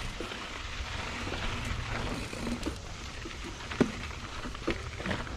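Mountain bike riding a dirt trail: a steady rush of tyres on dirt and wind, with scattered clicks and knocks from the bike rattling over the ground. The sharpest knock comes a little before four seconds in.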